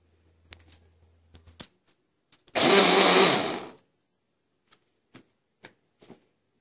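Braun hand blender with its chopper bowl run in one short burst of about a second, about two and a half seconds in, chopping onion with salt and detergent solution into a puree. Light clicks of handling come before and after.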